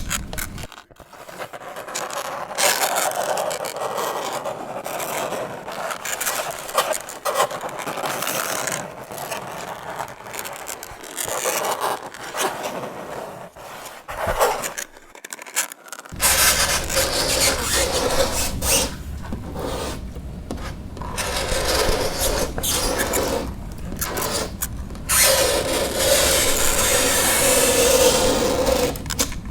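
Fingernails scraping across a chalkboard in repeated strokes, with a brief lull about halfway through and a high squeal in the last few seconds.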